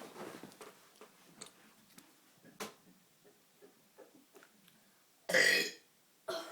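A boy's loud burp, a single pitched belch of about half a second near the end, after a few seconds of faint scattered mouth clicks.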